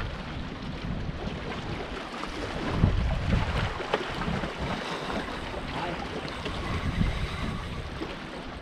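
Wind gusting and buffeting the microphone in uneven low rumbles, over the lap of choppy water against a rocky shoreline.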